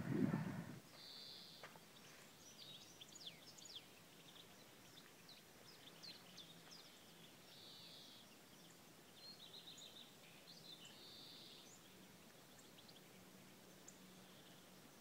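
Several songbirds singing faintly in a pine forest, with scattered chirps, trills and short buzzy phrases. A louder low rumble fills the first second and then stops.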